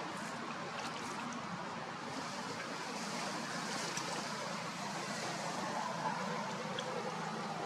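Steady wash of sea water at a harbour, with a few faint ticks.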